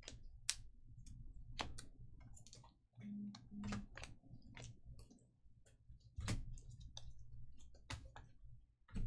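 Trading cards being handled and sorted on a table: irregular clicks and taps over a low steady hum.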